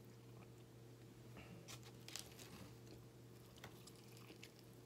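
Faint close-up eating sounds: chewing, then biting into a bagel sandwich, with soft crackly clicks, most of them about two seconds in.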